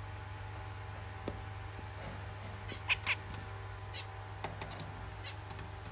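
Zebra finch giving short, nasal calls: a few scattered ones, with two loud ones in quick succession about three seconds in.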